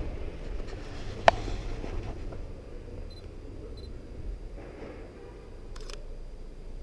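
Sony a7R II mirrorless camera taking a shot: two pairs of short high beeps as it focuses, then one quick double clack of the shutter near the end. A single sharp click about a second in is the loudest sound, over a low rumble.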